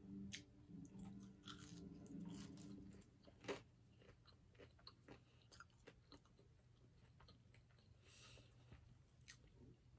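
Faint close-up chewing of a French fry: scattered soft mouth clicks, one louder click about three and a half seconds in, over a low hum that fades about three seconds in.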